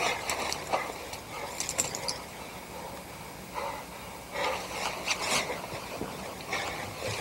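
Scattered rustling and scraping of clothing and gear as hands work over a body lying on the ground, with a few small clicks; a longer cluster of rustling comes about four to five seconds in.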